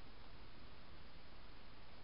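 Steady faint hiss from a Victure Mini trail camera's microphone, with no distinct sounds.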